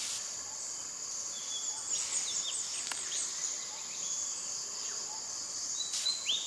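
Steady high-pitched chorus of insects, with a few quick chirping bird calls about two seconds in and again near the end.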